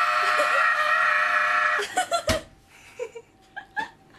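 A woman's voice holding one long, high-pitched cry for about two seconds, followed by a single sharp knock.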